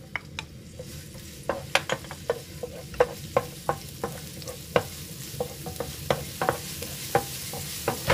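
Minced garlic sizzling in hot cooking oil in a frying pan while it is stirred, with frequent sharp clicks of the utensil against the pan. The sizzle grows about a second in.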